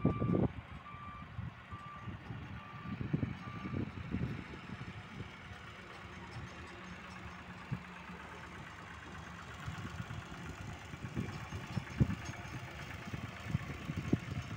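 Massey Ferguson tractor engine running steadily while pulling a loaded trolley through sand, heard from afar, with irregular low thuds over it. An electronic beeper sounds about twice a second for the first second and a half.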